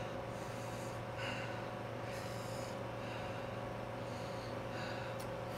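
A person breathing hard in short sniffs and breaths, several about a second apart, mouth burning after eating very spicy noodles, over a steady hum.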